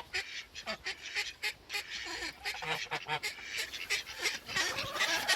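Crunching and rustling, like steps in snow and handled hay, with a few short, faint honks from the flock's waterfowl.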